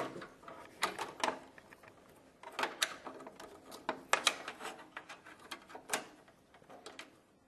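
Scattered sharp clicks and knocks of a graphics card being handled and pushed toward its slot inside a computer case, catching on something as it goes in.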